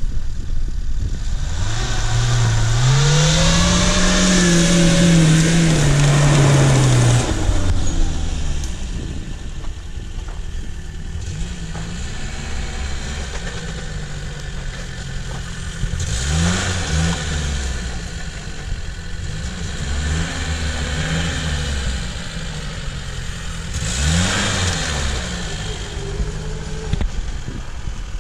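Lada Niva engine revving under load on a dirt track. A long rev in the first seven seconds climbs, holds and drops away, with a hiss of tyre and dirt noise alongside. It is followed by three shorter revs that each rise and fall.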